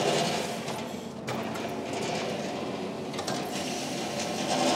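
Marunaka GT-Slider super surfacer running a cutting pass, its belt feeding a board under the blade as shavings come off: a steady mechanical whir with a faint hum.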